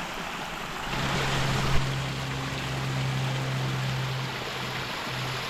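Rain-swollen creek rushing and splashing, a steady even wash of water noise that swells about a second in. A low steady hum starts at the same moment, and there is one sharp knock a little before two seconds.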